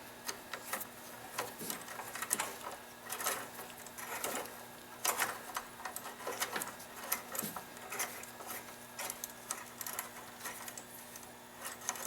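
Hand ratchet clicking in short runs of quick clicks as fasteners are worked loose on the ATC, with small clinks of metal parts between runs.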